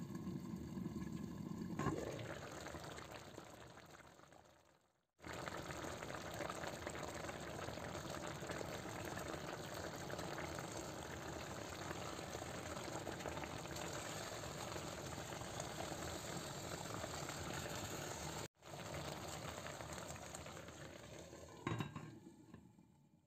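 Tomato sauce simmering in a frying pan, a steady bubbling hiss that cuts out abruptly twice. A short clink near the end as the glass lid is set back on the pan.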